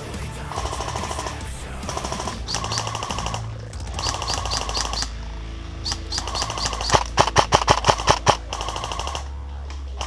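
Airsoft electric guns firing in short full-auto bursts, a rapid rattle repeated every second or so. A string of about nine louder, sharper shots comes about seven seconds in.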